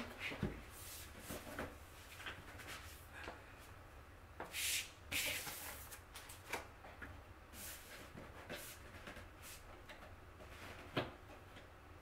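Hands working over a flat-pack particleboard desk: scattered light knocks and rubs on the panels, a sheet of paper rustling about five seconds in, and a sharper knock on the panel near the end.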